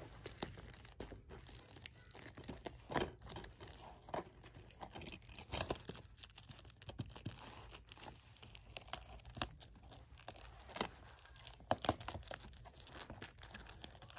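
A plastic DVD case being handled and turned over: faint crinkling of plastic with scattered light clicks and taps.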